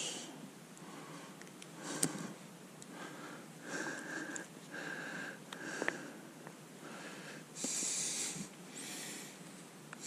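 Faint handling noise: a jacket sleeve rustling and a couple of light clicks as a recovered bullet is picked up off the table beside a ballistic gel block.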